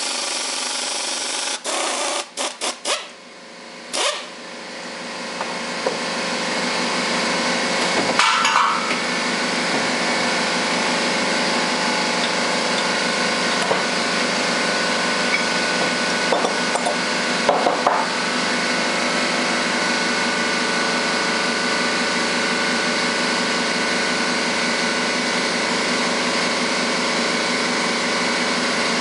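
Butterfly impact wrench hammering a tap into aluminium extrusion, then stopping in a few short bursts with sharp knocks. From about five seconds in, a shop air compressor starts and runs steadily, with a few metal clunks over it.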